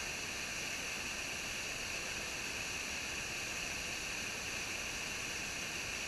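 Small waterfall cascading between boulders into a rocky pool: a steady, even rush of water with a strong hiss.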